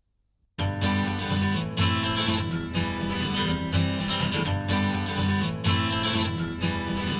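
An acoustic music track with strummed acoustic guitar and bass starts abruptly about half a second in, after a moment of silence. It is played back as a demo through in-ear monitors.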